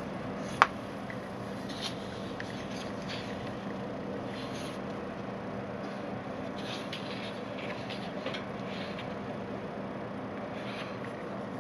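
Sheets of printed paper being handled and turned, with faint rustles and one sharp click about half a second in, over a steady low room hum.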